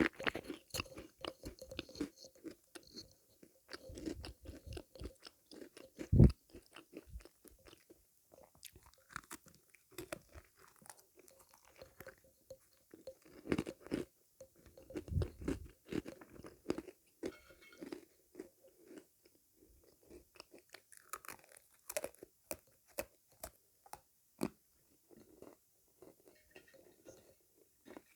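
Close-up sound of a person biting and chewing crunchy sweets: a run of crisp crunches and chewing, with one loud bite about six seconds in.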